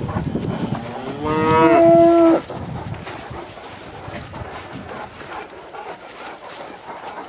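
A belted cow mooing once: a single call just over a second long, dipping slightly in pitch at its start, then holding steady before it cuts off.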